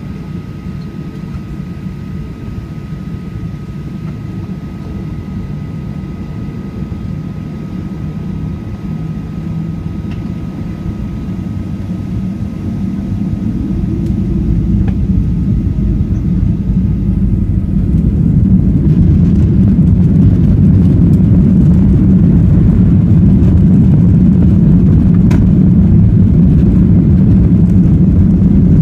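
Boeing 737-800's CFM56-7B engines heard from inside the cabin, spooling up to take-off thrust: a deep rumble grows louder over several seconds from about halfway through, then holds loud and steady. A faint steady whine fades out as the rumble builds.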